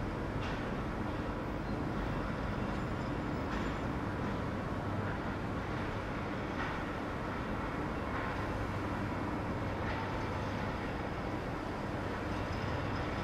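H0-scale model shunting locomotive running on the layout: a steady mechanical running noise with a low hum and a few faint scattered clicks.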